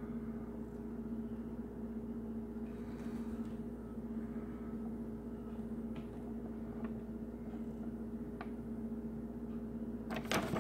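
A steady electrical-sounding hum with two constant pitches over a low rumble, with a few faint ticks and rustles of a paper instruction sheet being held and shifted in hand.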